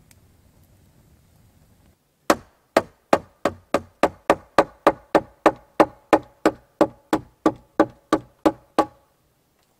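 Faint campfire crackle, then from about two seconds in some twenty quick hammer blows, about three a second, from a hatchet used as a hammer against the log roof beam of a lean-to. Each blow is sharp, with a short ringing note.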